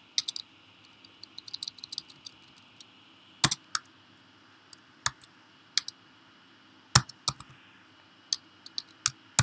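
Typing on a computer keyboard: irregular keystrokes, a run of light quick taps in the first two seconds, then sparser, louder key presses.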